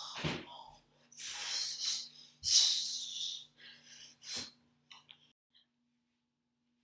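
A person's breathy puffs and hisses in a run of short bursts, over a faint steady hum. It all stops about five seconds in.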